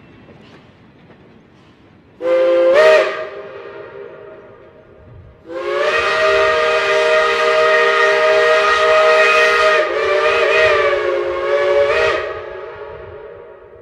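Shay geared steam locomotive's chime whistle sounding a chord of several notes: one short blast, then a long blast of about six seconds that wavers briefly before it ends.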